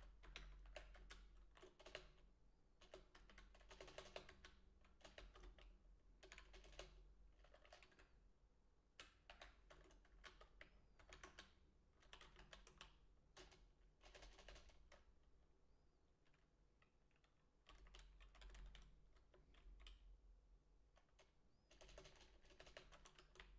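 Faint typing on a computer keyboard, in short bursts of key clicks with brief pauses between them.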